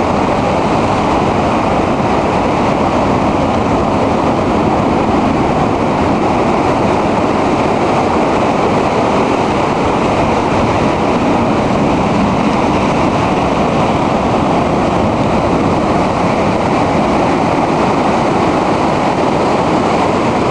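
Heavy surf from a storm-driven sea breaking over rocks and a concrete pier: a loud, steady rush of crashing and churning water.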